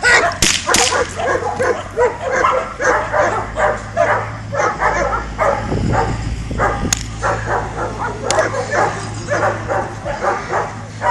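A dog barking excitedly in a fast, unbroken run of barks, about three a second, with a few sharp cracks about half a second in and again about 7 and 8 seconds in.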